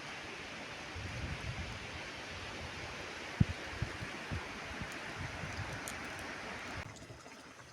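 Steady outdoor rushing noise, like flowing water, with wind buffeting the microphone in low rumbles and a single sharp knock about three and a half seconds in. Near the end it drops suddenly to a quieter hiss.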